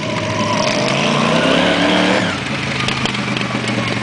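Modified racing lawn mower engines running hard on a dirt track; one engine's pitch rises, then falls away a little past two seconds in.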